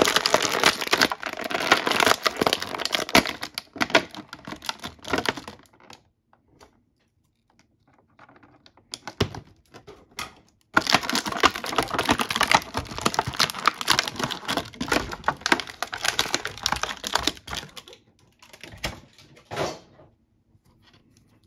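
A thin clear plastic bag around an action figure crinkling and crackling as it is handled and the figure is pulled out. It comes in two long bouts with a few quieter seconds between, then a few last crackles near the end.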